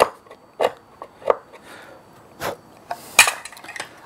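Handling of a small wooden box with a metal hand tool: several short wooden knocks and clicks under a second apart, with a louder scrape about three seconds in as the box is moved on the bench.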